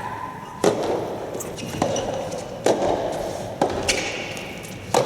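Rubber soft tennis ball struck by rackets and bouncing during a rally: five sharp knocks about a second apart, echoing in a large hall.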